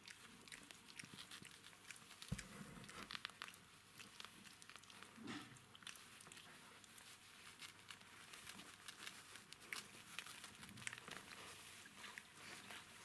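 Newborn Jack Russell Terrier puppies: faint, scattered small clicks and rustling, with one soft thump a little over two seconds in.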